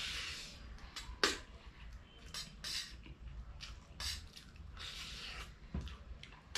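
Noodles being slurped in a string of short hissing bursts, with spoons and forks clinking and scraping on steel plates.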